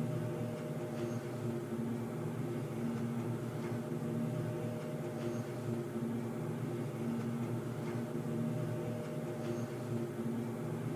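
Underground ambience drone: a steady low mechanical hum made of several held tones, one of which swells and fades every second or two, with a few faint ticks.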